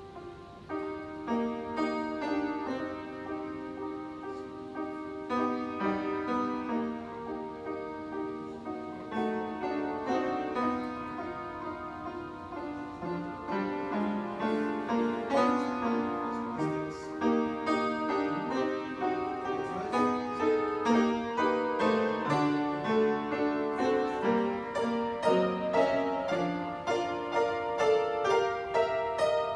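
An upright piano played live: a piece of continuous melody and chords, with the playing growing louder about halfway through.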